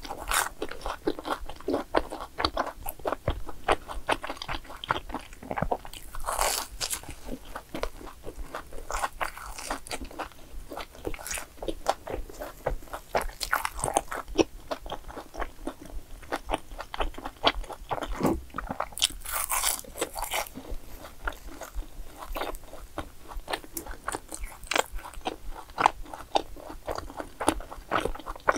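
Close-miked crunchy bites and chewing of fried sweet-rice doughnuts: quick runs of crackles, with a louder bite every few seconds.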